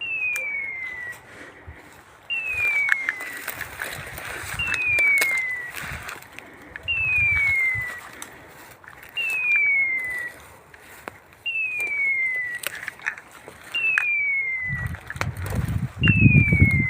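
A setter's beeper collar sounds its point signal: a falling electronic tone about a second long, repeated every two seconds or so, the sign that the dog is standing on point unseen in cover. Under it, footsteps rustle and squelch through wet undergrowth, loudest near the end.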